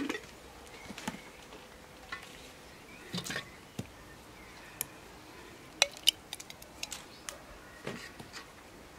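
Glass jars and a spoon clinking as thick, wet red pulp is spooned into a glass jar, with soft squishing between scattered sharp clinks. The two loudest clinks come about six seconds in.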